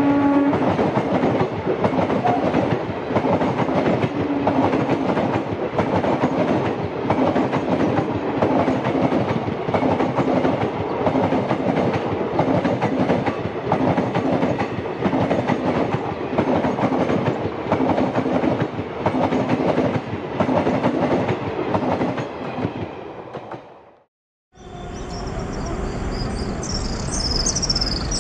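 Train wheels clattering rhythmically over rail joints with a steady running rumble as a train passes, just after a horn blast ends. The sound fades out about 24 seconds in, and after a cut insects are chirping.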